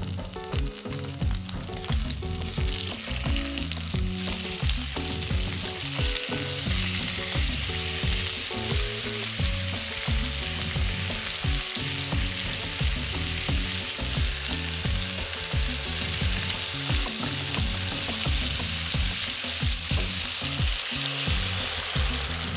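Beef steaks frying in hot oil in a frying pan: a steady hissing sizzle.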